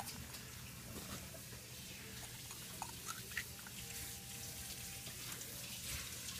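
Quiet room tone: a faint steady hiss with a few small, scattered clicks.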